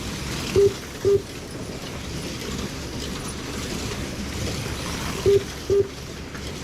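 Race running on a slot-car track with the Legends car engine sound effects: a steady, even racing noise. Two pairs of short electronic beeps sound through it, one pair about half a second in and another near the end.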